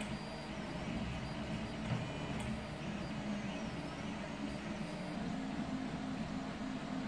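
Home-built CoreXY 3D printer mid-print: its stepper motors hum in tones that shift pitch every fraction of a second as the print head moves, over a steady whoosh of cooling fans.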